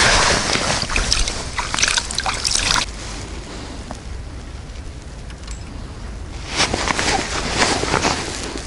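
Hands splashing and sloshing in shallow water at the water's edge for about the first three seconds, then a quieter stretch with another brief rush of noise near the end.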